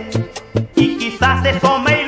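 Vallenato music, an instrumental passage: an accordion-led melody over a repeating bass line and steady percussion.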